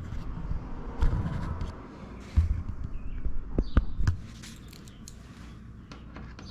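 Irregular bumps and thuds with a few sharp clicks and knocks, from hands and tools working the fairing bolts on a motorcycle.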